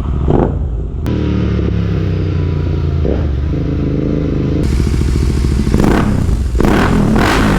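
Royal Enfield Continental GT 650's 648 cc parallel-twin engine running, blipped briefly about three and six seconds in, then revved harder and louder from about six and a half seconds.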